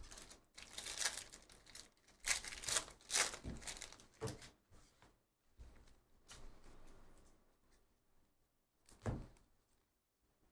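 Crinkling and tearing of a foil Panini Donruss basketball card pack being ripped open, in several short bursts, followed by softer rustling of the cards being handled and one brief sharp snap about nine seconds in.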